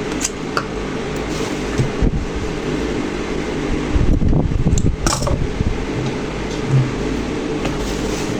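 Sewing machine running steadily, stitching a zipper down onto trouser fabric, with a rougher, slightly louder stretch about four to five seconds in.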